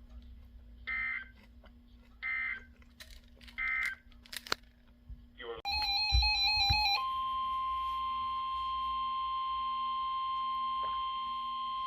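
NOAA Weather Radio alert signals through a 12-261 weather radio's speaker: three short warbling SAME data bursts, the end-of-message code closing the previous warning. About six seconds in a brief warbling tone sounds, followed by the steady 1050 Hz warning alarm tone that announces the next severe thunderstorm warning.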